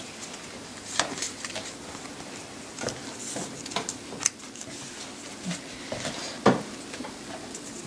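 Scattered light taps and rustles of trading cards and foil packs being handled and set down on a wooden table, a few separate clicks with faint rustling between them.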